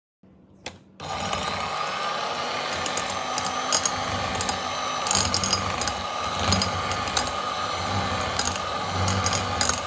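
Electric hand mixer running on high speed, its beaters whisking an egg into choux pastry dough in a stainless steel saucepan: a steady motor whine with scattered sharp clicks. It starts about a second in.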